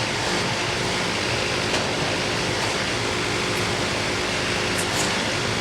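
Portable band sawmill's engine running steadily while the log is set up, a constant mechanical hum with a faint click or two.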